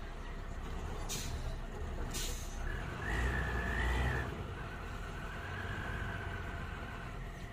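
Heavy vehicle engine, most likely the bus's diesel, idling with a steady low rumble. Two short hisses come about one and two seconds in. From about two and a half seconds a thin, steady high squeal holds for several seconds, while the engine rumble swells for about a second.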